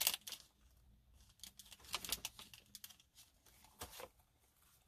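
Faint rustling and crinkling of packaging being handled, in a few short scattered bursts.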